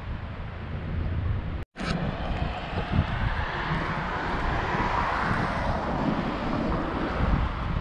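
Wind rumbling on the microphone, with a passing vehicle swelling and fading about halfway through. The sound cuts out for an instant near the start.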